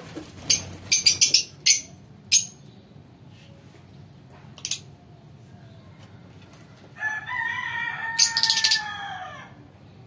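Lovebirds giving sharp, shrill chirps in quick clusters during the first few seconds and again near the end. A rooster crows once, starting about seven seconds in and lasting about two and a half seconds, its pitch dropping at the close.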